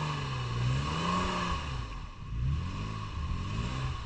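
Off-road 4x4's engine revved up and down three times while reversing on rough, swampy ground.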